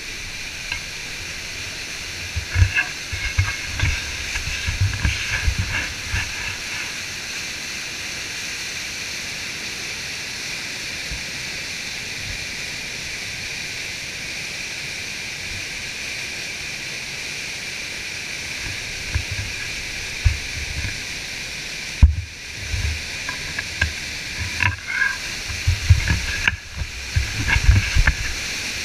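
Whitewater of a large rapid-waterfall pouring over rocks close by, a steady hissing rush of water, with irregular low thumps of spray and handling against the camera housing, heaviest near the start and in the last few seconds.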